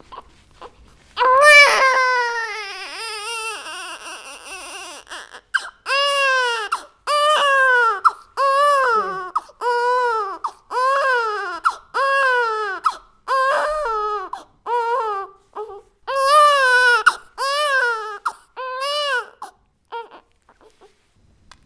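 A baby crying hard: one long wail about a second in, then over a dozen short cries in quick succession, each rising and falling in pitch, stopping near the end.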